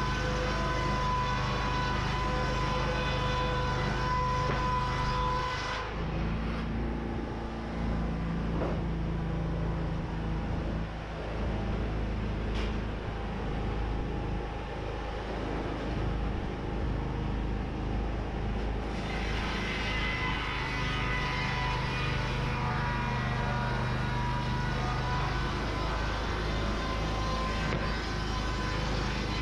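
Wood-Mizer portable band sawmill running, its engine and band blade going steadily, with the tone shifting about six seconds in and again around nineteen seconds.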